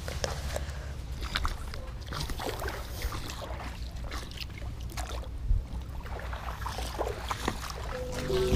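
Wind rumble on the microphone with light water sloshing and scattered small knocks of handling. Background music comes in near the end.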